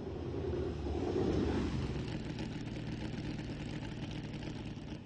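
McLaren M20's 8.3-litre alloy Chevrolet V8 race engine running slowly with a steady deep rumble that swells about a second in, over the hiss of an old film soundtrack.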